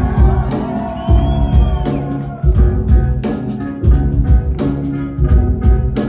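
Live band playing an instrumental groove: upright bass and drums with keyboards, a steady beat with heavy bass notes coming round about every one and a half seconds.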